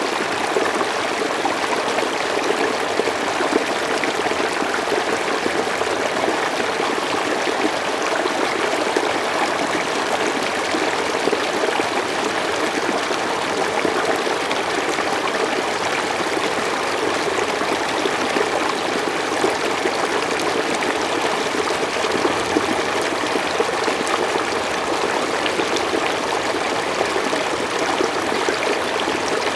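Mountain stream flowing steadily over rocks, a constant splashing rush of water.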